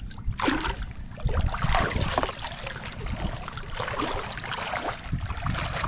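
Water washing and splashing in irregular surges, with wind rumbling on the microphone.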